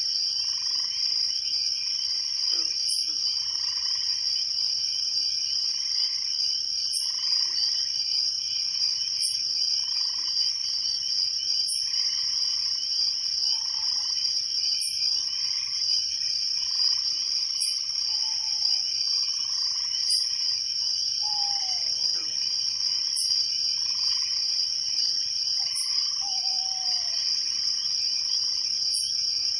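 Night chorus of crickets trilling steadily, with frogs calling over and over beneath them. A sharp high insect chirp repeats about every two and a half to three seconds.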